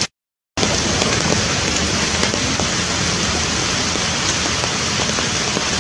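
Steady rain falling, a dense even hiss with scattered small patters; the sound cuts out completely for about half a second near the start.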